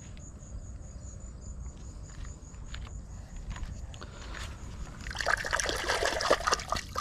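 A hand splashing and rinsing in shallow river water, a quick run of splashes starting about five seconds in.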